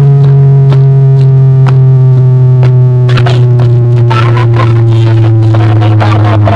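Music played very loud through a sound system: a long held synthesizer bass note that slowly sinks in pitch, with sharp percussive hits over it.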